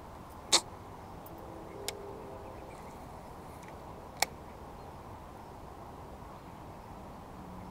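Three sharp clicks from fishing tackle being handled, the loudest about half a second in and the others near two and four seconds in, over a steady faint outdoor hiss.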